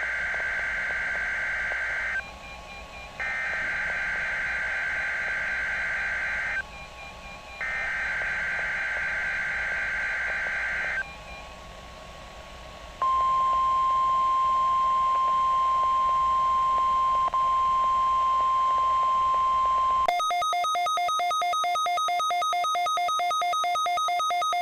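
NOAA Weather Radio Emergency Alert System test tones. First come the SAME header's digital data bursts: a buzzy two-tone warble sent three times, with about a second's gap between. Then the steady 1050 Hz weather-radio alert tone for about seven seconds, and from about twenty seconds in a rapidly pulsing siren.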